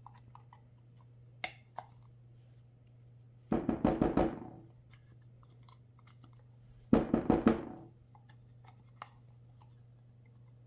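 Two bursts of quick, loud knocking, about three and a half and seven seconds in, each a handful of rapid raps: a container knocked against a mixing bowl to get the last of a sticky cottage-cheese batter out.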